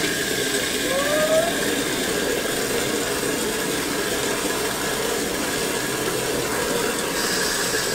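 Water jetting from a hose into a glass aquarium tank and splashing into the water already in it, a steady rush that doesn't let up.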